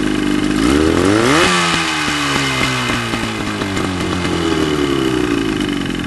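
25-horsepower outboard motor running, revved up sharply about a second in and then easing slowly back down toward idle.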